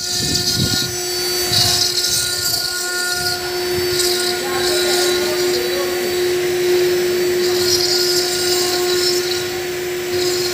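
Spindle of a Black Smith KS-1325 CNC stone carving router running steadily while cutting stone, with a constant whine and a high hiss that comes and goes.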